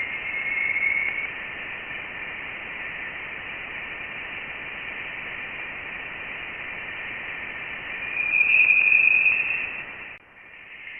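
Voyager 1's plasma-wave readings of the interstellar gas, turned into audio: a steady, eerie hiss with a thin whistling tone over it. It swells louder about eight seconds in and drops away suddenly near the end. The sound stands for the persistent plasma oscillations of the interstellar medium.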